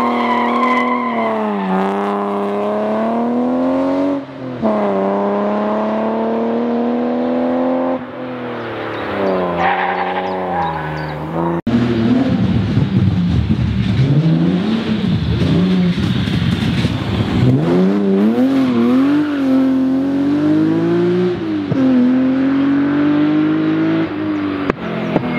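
Rally car engines under hard acceleration: first a BMW E30 rally car pulling away, its pitch climbing and dropping back at each upshift. After a sudden cut, another rally car's engine revs up and down, rising and falling repeatedly.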